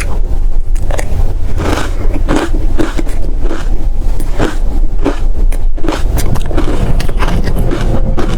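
Bites into dry-textured frozen matcha ice, close to the microphone: a dense run of irregular crunches and cracks.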